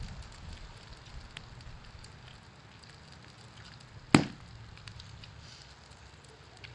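A single sharp knock about four seconds in, over a faint low background with a few faint ticks.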